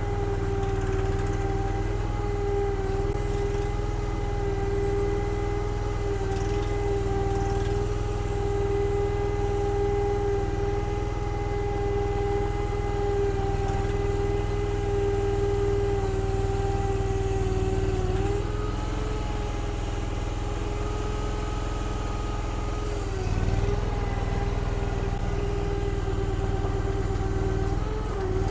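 Mini skid steer's engine running steadily at high revs while it tows a trailer, its pitch dipping briefly under load about two-thirds of the way in, again a few seconds later, and near the end.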